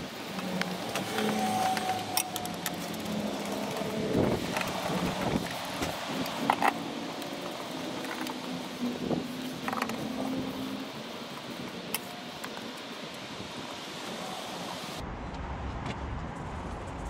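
Scattered clicks and knocks of gloved hands handling parts in a car's engine bay below the windscreen, over steady outdoor background noise.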